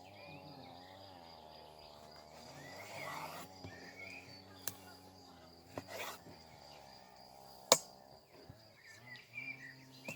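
Forest ambience: a steady high insect-like tone with scattered bird chirps, over a low wavering hum. Three sharp clicks cut through, the loudest about three-quarters of the way through.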